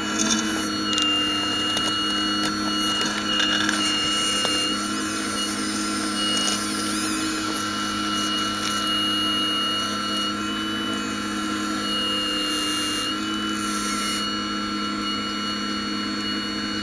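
Radio-controlled scale model Hitachi 870 excavator's electric motors and hydraulic pump running with a steady whine, the pitch shifting briefly as the arm and bucket work under load.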